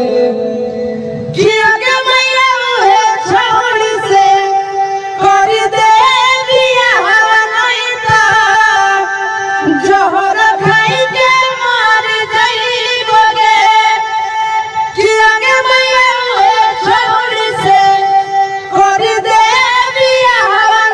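Bhojpuri song: a singer's wavering, ornamented melody over instrumental backing, growing fuller and louder about a second and a half in.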